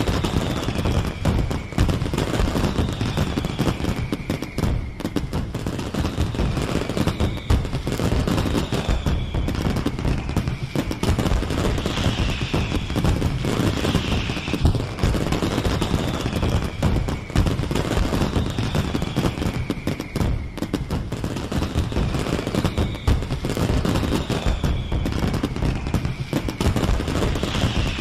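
Fireworks display: a continuous barrage of rapid bangs and crackling, with falling whistles recurring about every two seconds.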